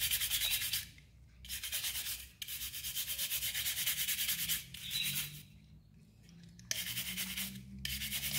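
Brass wire brush scrubbing the gold-plated metal case of an ST Dupont Ligne lighter to clean off grime, in rapid back-and-forth strokes. The scrubbing comes in several spells with short breaks and one longer pause past the middle.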